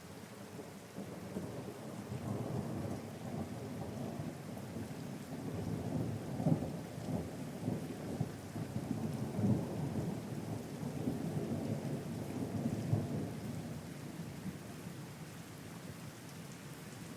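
Thunderstorm: a long roll of thunder over steady rain. The rumble builds about a second in, swells in several surges through the middle and dies away near the end.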